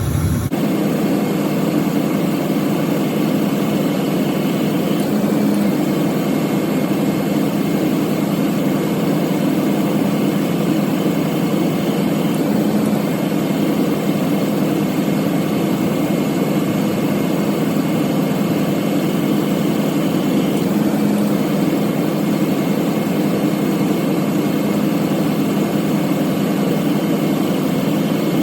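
Ford F-250 pickup engine idling steadily with the A/C compressor running while refrigerant is being added. The tone shifts slightly every several seconds as the compressor clutch cycles, now holding engaged longer as system pressure comes up.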